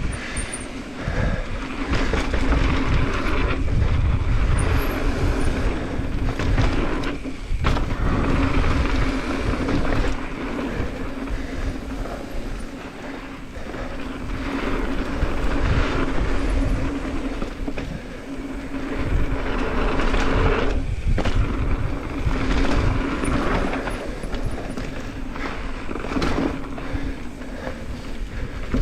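Noise of a fast ride down a dirt trail, picked up by a helmet or handlebar action camera: wind buffeting the microphone, over constant rattling and rumbling from the ground. There are two brief lulls, about a third of the way in and again about three quarters of the way in.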